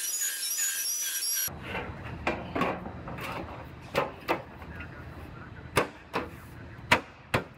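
Loose sheet-metal body panel handled against a car body: irregular light knocks and taps of metal on metal as it is fitted into place. For the first second and a half a short, high warbling sound plays instead.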